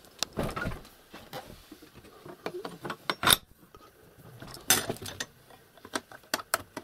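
Metal door latch and hasp being worked by hand: a string of sharp metallic clanks and clicks, the loudest about halfway through.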